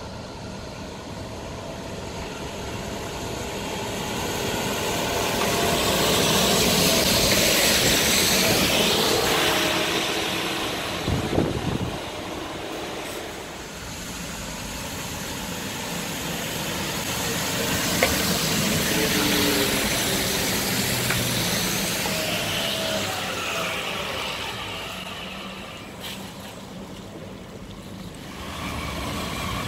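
Vehicles passing on a wet road, including a rubber-tyred Translohr tram: tyre hiss on wet tarmac swells and fades twice. A brief pitched sound comes about eleven seconds in.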